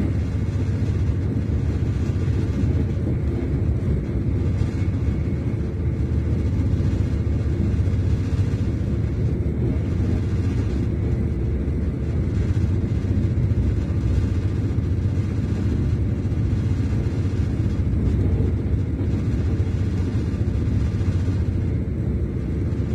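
Steady low rumble of a Class 221 Super Voyager diesel-electric train running at speed, heard from inside the passenger saloon.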